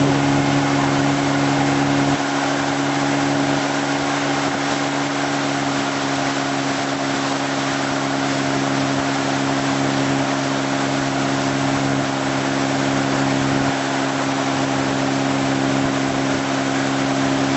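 Tow boat's engine running steadily at towing speed, with water and wind rushing past.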